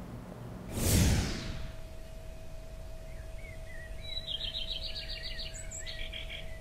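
A whoosh sweeping down about a second in, then birds chirping and trilling over a faint steady hum.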